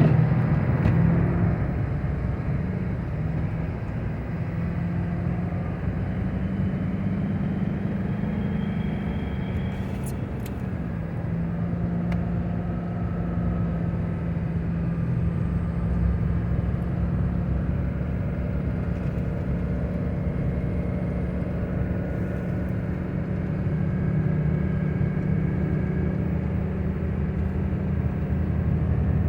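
A motor vehicle running steadily, with a low, even engine hum and road noise.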